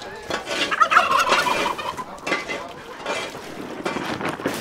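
Turkey gobbling: a loud, rapid warbling gobble about a second in, followed by weaker calls.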